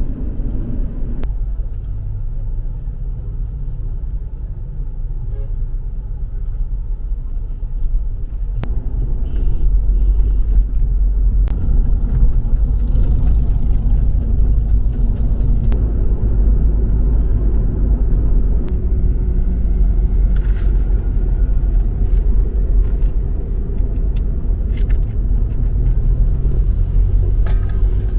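Low, steady rumble of a car driving on the road, getting louder about nine seconds in, with a few faint clicks.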